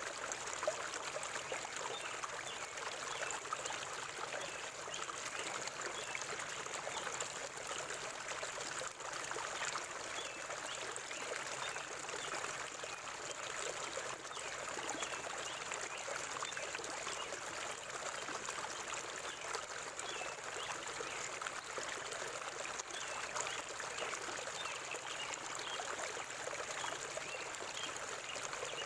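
River water flowing in a steady, even babble.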